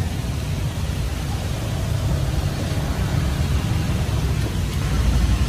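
Steady low rumble of street traffic under an even hiss.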